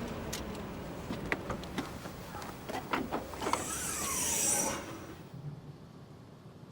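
Scattered small clicks and knocks of objects being handled, then a brief sliding, scraping noise about three and a half seconds in that dies away about a second later.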